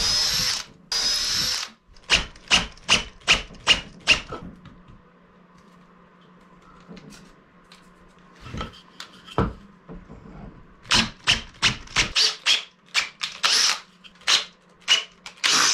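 Cordless drill boring holes through a wooden ledger: one continuous run at the start, then a series of short bursts of the motor.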